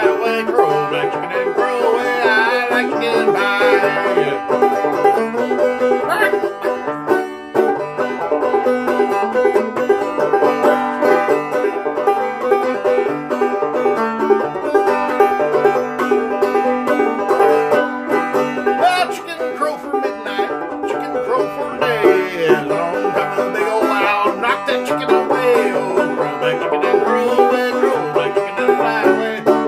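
Five-string banjo playing an old-time tune, plucked notes going on steadily, with a brief dip about seven seconds in.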